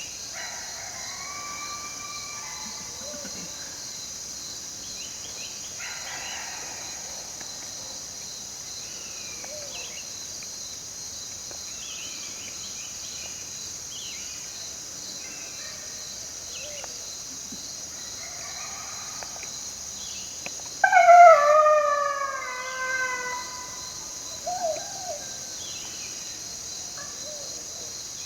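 Coyotes howling and yipping faintly over a steady buzz of insects, then a much louder howl that falls in pitch about three-quarters of the way through, with a shorter yip after it.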